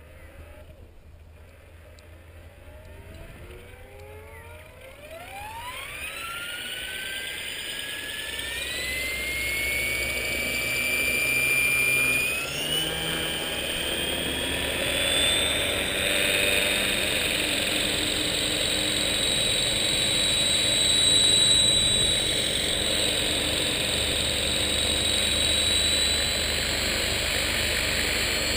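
Align T-Rex 600 RC helicopter spooling up on the ground: a whine that climbs in pitch and grows louder over the first ten seconds or so, then settles into a steady high whine with rotor noise as the head reaches speed.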